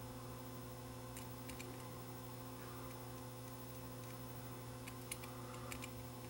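Low steady electrical hum, with a handful of faint light clicks and taps as the tip of a contact-cleaner applicator is worked against the switch contacts on a cassette player's circuit board.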